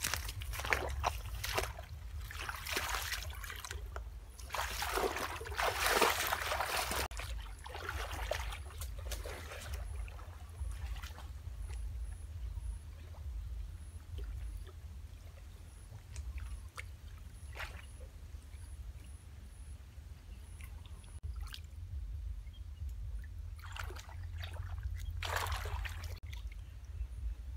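Shallow pond water sloshing and splashing in irregular bursts as hands work in the water and mud around a bamboo eel trap. The splashing is busiest in the first third, quiet in the middle, and comes back near the end.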